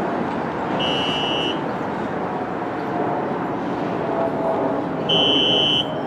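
Two short, steady, high-pitched buzzer tones about four seconds apart, the second louder, over the steady rumble of a subway station with trains.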